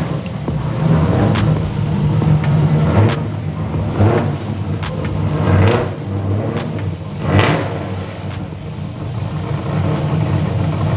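An LS V8 drift car's engine runs at a low, rumbling idle as the car rolls slowly into the shop, rising and falling a little with throttle. A few brief sharp clicks or cracks sound over it.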